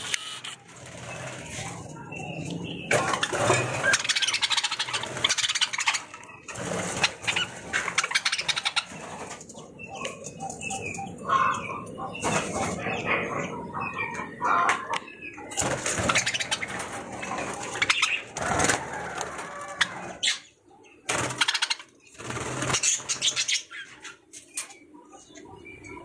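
A flock of budgerigars chirping and chattering, with repeated loud rustling bursts in between.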